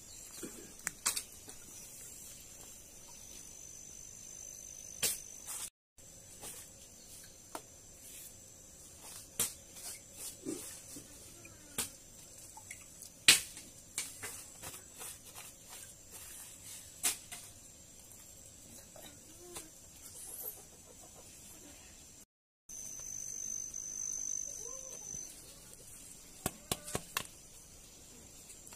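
Scattered clinks and knocks of metal and plastic dishes being handled, the sharpest about midway, over a steady high-pitched insect drone.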